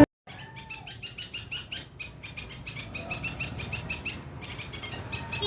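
Bulbul chirping: a quick, even series of short high chirps, about five a second, with one lower gliding call near the start.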